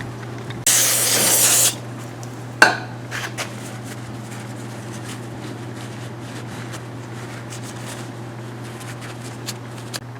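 A one-second hiss from an aerosol can of carburetor cleaner sprayed on carburetor parts, followed by a sharp knock and light clicks of small metal parts being handled, over a steady low hum.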